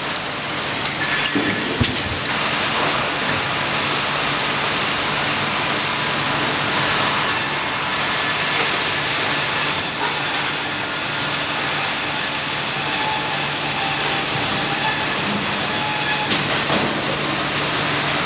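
Tandem log band saw line running: a loud, steady machine noise over a low hum. About seven seconds in a high whine joins it, growing stronger around ten seconds, as the blades run through the logs.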